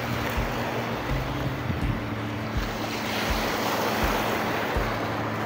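Wind buffeting the microphone over small waves lapping at the shore, as a steady rush of noise.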